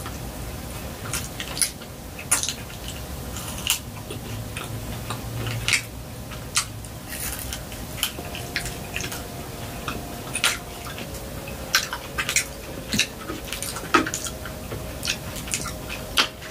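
Close-miked chewing and biting of fried chicken, with many short wet clicks and smacks of the mouth, about two a second, and fingers being sucked clean.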